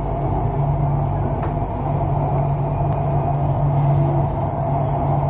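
Metro train running along an elevated track, heard from inside the carriage: a steady rumble with a constant low hum.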